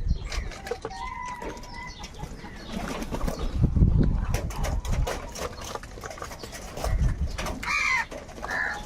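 Crows squabbling over food, with scattered clicks and scuffles and a low rumble around the middle; two short harsh caws come near the end.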